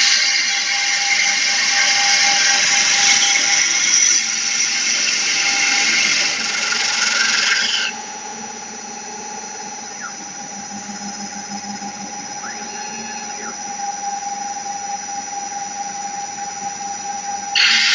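CNC stone router's core drill bit cutting into a stone slab: a loud, steady high-pitched grinding squeal. About eight seconds in it breaks off, leaving only the spindle motor's quieter steady whine. Just before the end the squeal starts again as the bit bites into the next hole.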